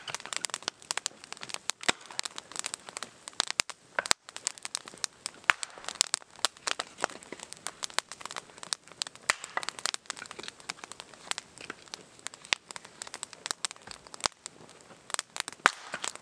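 Open wood campfire crackling and popping, with irregular sharp snaps coming several times a second. The wood is very dry.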